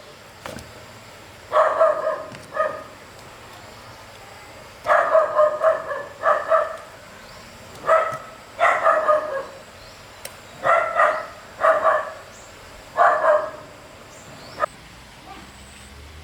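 A dog barking in short runs of two to four barks, a run about every three seconds.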